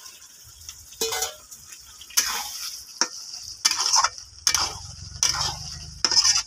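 A spatula stirring and scraping chicken and potatoes around a kadai, about one stroke a second, over a steady hiss of frying in oil now that the meat's water has cooked off. Soaked potatoes are tipped into the pan about a second in.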